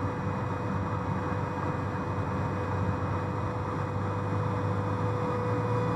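Small Cessna's piston engine and propeller droning steadily at reduced approach power, heard inside the cockpit, with a thin steady tone over it and a slight swell in the drone near the end.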